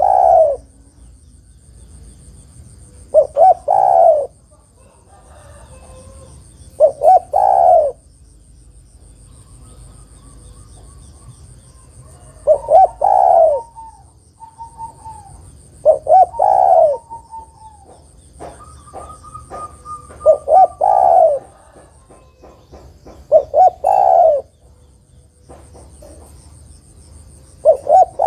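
Female spotted dove cooing: a phrase of a few quick notes and a longer closing coo, repeated about every three to four seconds. Faint chirps of other birds sound between the phrases.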